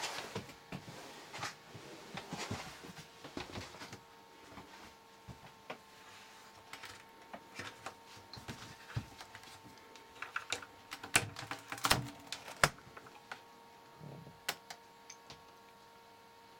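Scattered clicks and knocks of a caravan fridge-freezer door being handled and opened, loudest a little past the middle, over a faint steady tone.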